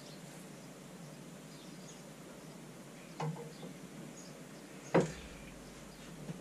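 A pint pulled on a beer hand pump: faint handling sounds, with a soft knock about three seconds in and a sharper, louder knock about five seconds in.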